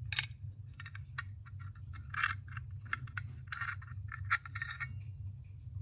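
Small metal rifle parts clicking and scraping as the magazine spring and plunger are drawn out of a pump-action rifle's magazine tube and handled, a dozen or so sharp clinks and short scrapes. A steady low hum runs underneath.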